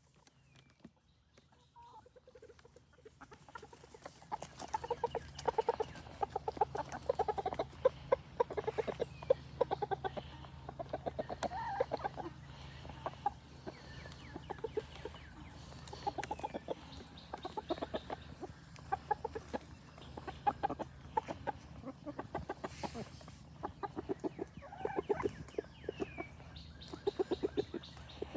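Hens clucking in quick short bursts while pecking at biscuit crumbs on a plastic cutting board, with the taps of their beaks on the board; it starts a few seconds in and keeps up busily.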